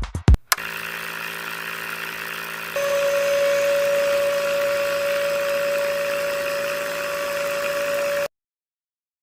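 Small electric motor of a homemade model drilling rig running with a steady hum; about three seconds in it gets louder and a steady whine comes in. It cuts off abruptly near the end.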